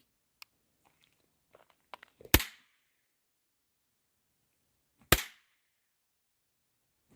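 Novelty bang snaps (Trump Snaps Back) going off: two sharp, loud cracks about three seconds apart, and a third right at the end, with a few faint ticks before the first.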